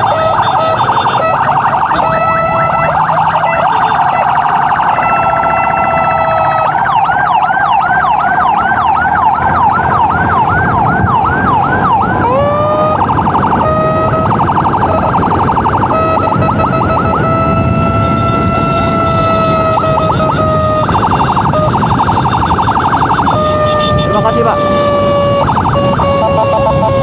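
Electronic emergency siren switching between modes: a rapid pulsing warble, then a fast yelp of about two sweeps a second for several seconds, then a long held wail broken by short bursts of rapid pulsing, its pitch falling slowly near the end. The rumble of motorcycle engine and road noise runs underneath.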